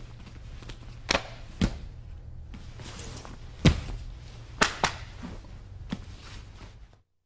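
A series of sharp slaps and thuds from two men grappling barefoot on a training mat, about six in all, the loudest a little past halfway, over a steady low hum. The sound cuts out briefly near the end.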